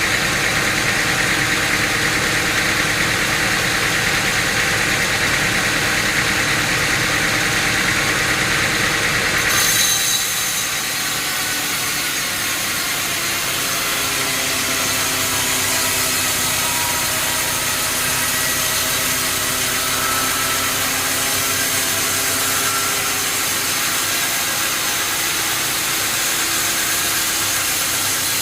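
Engine-driven sawmill machinery running: about ten seconds in, a harsh, noisy cutting sound stops abruptly, leaving the machine's engine running steadily.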